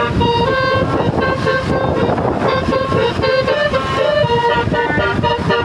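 Telolet bus horn, a multi-tone air horn, playing a quick tune of stepping notes, several per second, over a low rumble.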